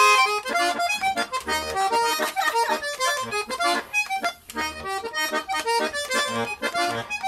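Button accordion played solo: a quick melody of short, detached notes over recurring low bass notes, with no voice.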